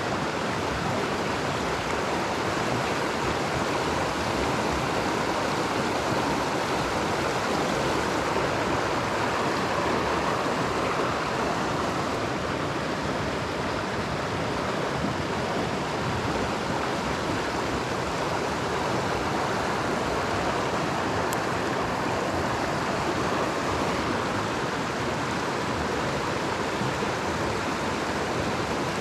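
Mountain stream water rushing over rocks, a steady, even rush of flowing water.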